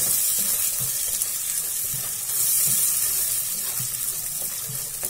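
Masala gravy sizzling in a kadai as it is stirred with a spatula: a steady high hiss that swells twice, with soft knocks of the spatula against the pan.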